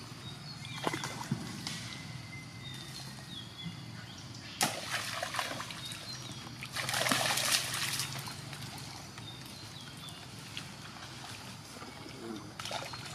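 A monkey splashing in a muddy puddle: one sharp splash about four and a half seconds in, then a louder stretch of splashing lasting about a second, about seven seconds in. Short high chirps sound now and then.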